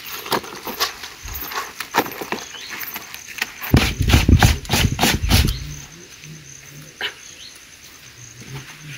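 Dried maize being shelled by hand, kernels clicking and pattering as they are rubbed off the cob. About four seconds in there is a louder two-second stretch of clatter with a low rumble, then sparser clicks.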